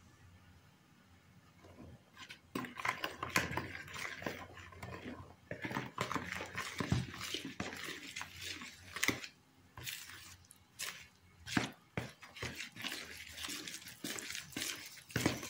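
Hand mixing flour into a wet yeast mixture in a bowl: irregular squelching and gritty rubbing of damp flour, with short sharp clicks. The mixing starts about two seconds in and goes on in uneven strokes.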